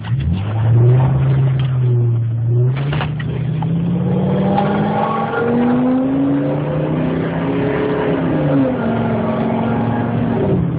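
1999 Ford F250's 6.8-litre V10 gas engine with a Magnaflow exhaust, heard from inside the cab. The engine note rises steadily in pitch for a few seconds, holds, then eases back down, falling toward idle near the end.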